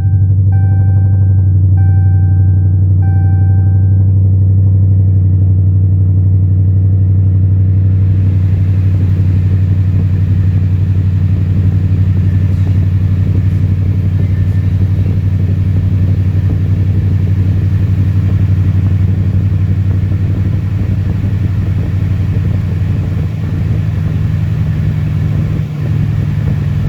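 Dodge Challenger's Hemi V8 idling steadily just after start-up, running through aftermarket headers. A dashboard warning chime dings about once a second for the first few seconds.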